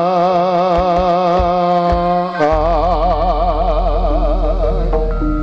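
Javanese jaranan music: a long melody line held with a fast, even vibrato, moving to a new note about halfway through, over a low steady drone.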